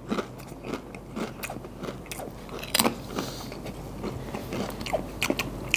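Tortilla chips crunching as they are bitten and chewed, an irregular run of crisp crunches.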